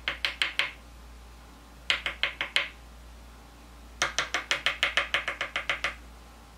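Quick runs of sharp taps, about eight a second: a short run of five at the start, another about two seconds in, and a longer run of about fourteen from four seconds in.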